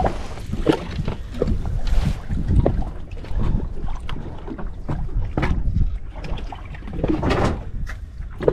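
Small waves lapping and slapping irregularly against the hull of a drifting boat, with a steady low rumble of wind on the microphone.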